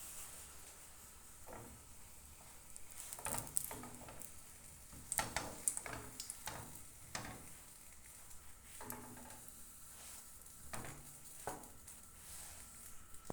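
Scattered knocks and scrapes of a cooking utensil against a pan, clustered in the first half and sparser later, over a faint frying sizzle.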